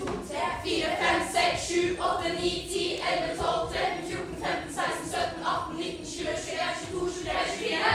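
A group of singers singing a song together in chorus, with long held notes.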